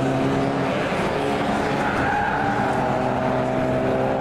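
Mazda MX-5 race car engines running over a noisy background, with several engine notes at once. One holds steady, then new notes come in and rise about a second or two in as cars drive past the spun car.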